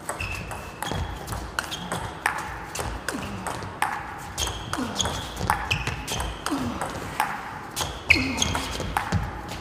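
Table tennis rally: the ball clicking off rackets and table in a steady back-and-forth, a sharp click about every half second to second, each with a short high ringing tone.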